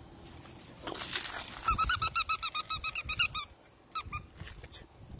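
A dog's squeaky toy squeaked in a fast, even run of short squeaks lasting nearly two seconds, then twice more a moment later.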